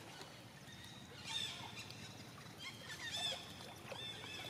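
Water sloshing and dripping as macaques swim in a pool and a mother with her baby on her back climbs out, with several short, high-pitched chirping calls over it.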